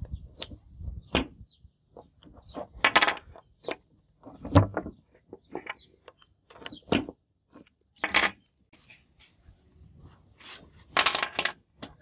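Brass key sliding in and turning in a small handmade steel padlock, with small metal parts being handled: a run of sharp metal clicks and scrapes, with several short ringing clinks.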